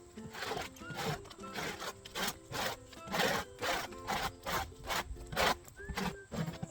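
Rhythmic scraping strokes, about three a second, over background music.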